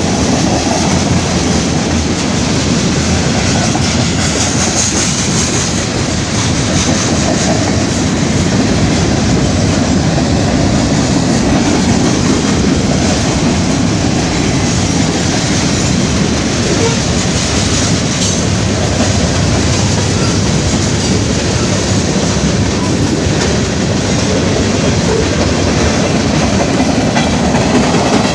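Train cars rolling past close by, a steady loud noise of steel wheels on the rails that continues without a break.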